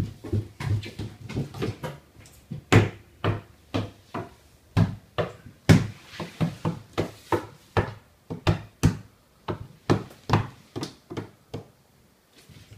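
A toddler's bare hands and knees slapping on hardwood floorboards as he crawls fast: an uneven run of thuds, a few a second, thinning out near the end.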